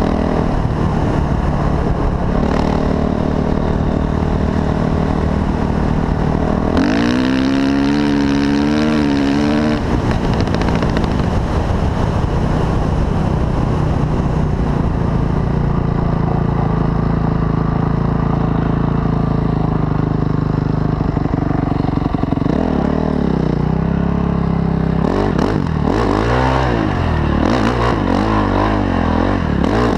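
Honda CRF450 dirt bike's single-cylinder four-stroke engine running under way. It revs up sharply about seven seconds in and holds high for a few seconds, then settles. Near the end the revs rise and fall repeatedly.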